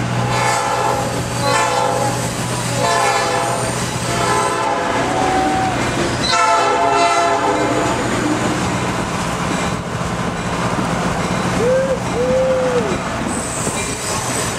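Diesel locomotive air horn sounding a series of blasts, about four of a second each and then a longer one about six seconds in. Under the horn runs the steady rumble of the train moving along the track.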